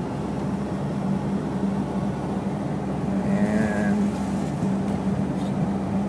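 Car driving, heard from inside the cabin: a steady engine and road hum. A brief higher-pitched sound cuts in a little past halfway.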